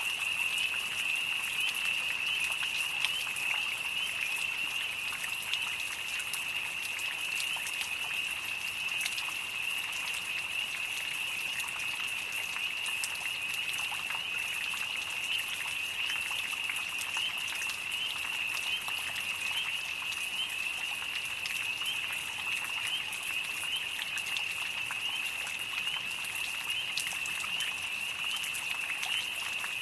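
Light rain falling, with crickets chirping in a continuous high trill over it.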